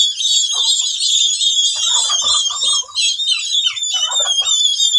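A brood of turkey poults peeping continuously, many short high chirps overlapping into a dense chorus, with a few lower calls about two and four seconds in.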